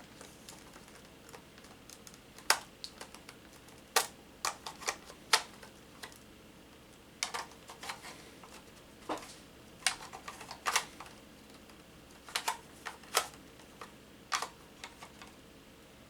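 Irregular sharp plastic clicks and knocks from a System Sensor 1400 smoke detector and its mounting base being handled, some coming in quick clusters of two or three.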